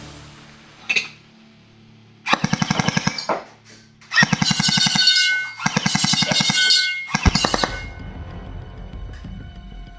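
Tokyo Marui H&K USP automatic electric airsoft pistol firing several bursts on full auto, each about a second long at roughly a dozen shots a second, over background music.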